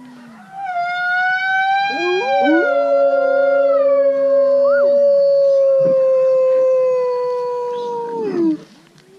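Gray wolves howling together. One long, loud howl starts about half a second in; other wolves' howls glide in and overlap it around two seconds in. The main howl holds steady, then drops in pitch and stops near the end.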